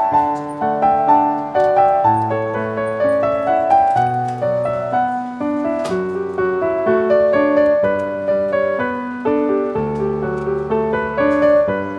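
Background piano music, a melody of changing notes over lower held notes.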